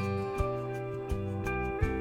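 Background music: plucked guitar notes over a steady beat of drum hits.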